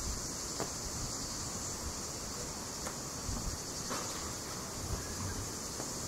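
Steady high-pitched drone of cicadas, with a low wind rumble on the microphone underneath.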